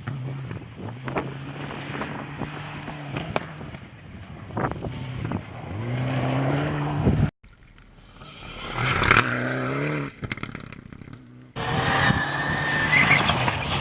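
Rally car engines revving as cars run through the stage, the engine note climbing and dropping with gear changes and throttle lifts, with scattered sharp clicks. The sound cuts off abruptly about halfway through, a fainter car rises and falls, then another car's engine cuts in suddenly near the end.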